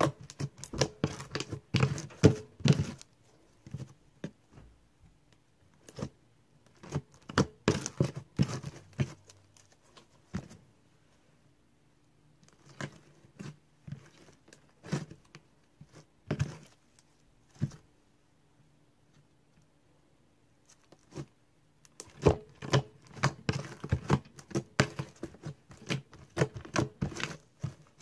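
Homemade slime being kneaded and pressed by hand, giving runs of quick sticky clicks and pops. Through the middle the clicks thin out to a few scattered ones, then come thick again near the end.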